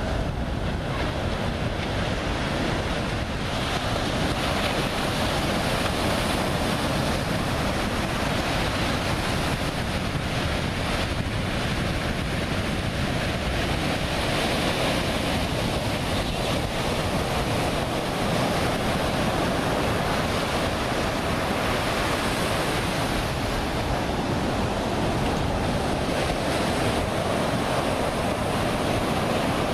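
Ocean surf breaking and washing in as a steady rush, with wind blowing across the microphone.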